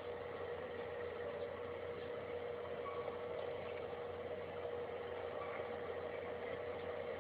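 A steady droning hum that holds one constant tone over an even hiss, with no change in pitch or level.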